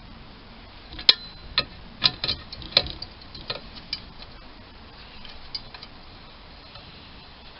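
A string of sharp, irregularly spaced metallic clicks and clinks from hand tools on metal, a few ringing briefly. They bunch up about a second in, thin out after about four seconds, and one last click comes near the end.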